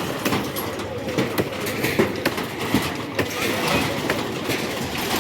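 Heavy demolition machinery rumbling, with frequent clattering and knocking as structures are torn down.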